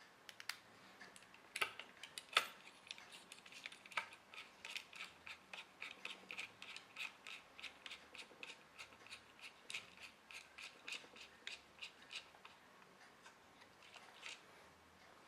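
Actuator arm of an opened Hitachi laptop hard drive, powered on with its platters removed, clicking in a quick regular train of about three ticks a second. A few louder clicks come in the first four seconds.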